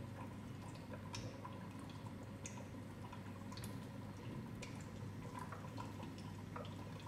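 Hydrogen inhalation machine running and making hydrogen: faint, irregular bubbling and dripping ticks from its water tank over a low, steady hum.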